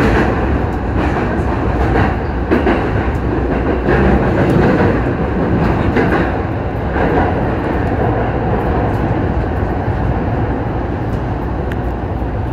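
JR Kawagoe Line electric commuter train running through a tunnel into an underground station: a steady rumble of wheels on rail with occasional clacks over the rail joints, easing off gradually as the train slows for the platform.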